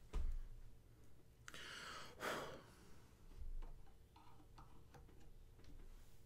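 Faint clicks and taps of small resin and plastic statue parts being handled and fitted together, with a low thump right at the start and a short whooshing rush about two seconds in.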